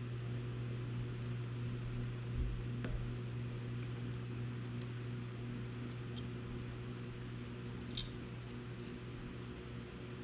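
Scattered small metallic clicks and taps of screws, a hex driver and aluminium standoffs being handled and tightened on a drone frame, the sharpest click about eight seconds in, over a steady low hum.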